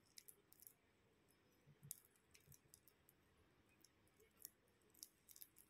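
Near silence with faint, scattered small clicks from hands working homemade slime in a plastic bowl.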